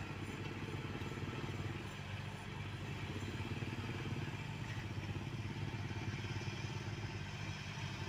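Asphalt paver's diesel engine running steadily at a constant low rumble while the paver lays asphalt.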